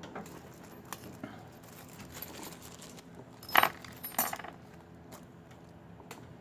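Small metal parts and tools clinking as a copper jaw is taken off a jump-starter cable clamp: a few light clicks, then two louder metallic clinks a little past the middle.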